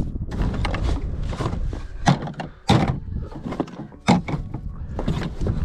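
Three sharp knocks about 2, 2.7 and 4 seconds in, amid continuous rustling and handling noise, like objects being moved about and knocked together.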